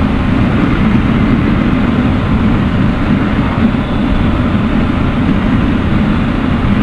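Triumph Explorer motorcycle's three-cylinder engine running at a steady cruise, with wind and road noise mixed in. The engine note holds even, with no revving or gear changes.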